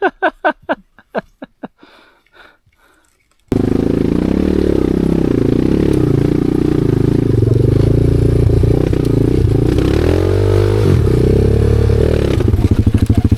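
Motorcycle engine: a string of short bursts that fade away over the first two seconds, then the engine running loudly and steadily from about three and a half seconds in, its pitch shifting around the tenth second and turning into a rapid pulsing near the end.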